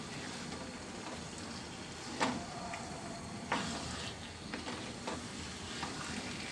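Thick mash of taro flowers sizzling steadily in a frying pan as it fries in oil and spices. A spatula stirs it, with a few sharp scrapes against the pan, the loudest about two seconds and three and a half seconds in.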